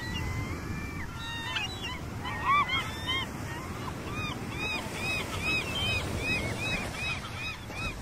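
Gulls calling: long drawn-out cries at first, then a long run of quick, evenly repeated laughing notes, about three a second, over a low rumble of surf.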